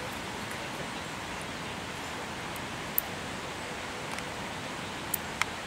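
Steady outdoor background hiss with a few short, sharp clicks: one about halfway through and two close together near the end. They are far too faint and thin to be gunshots from the firing line.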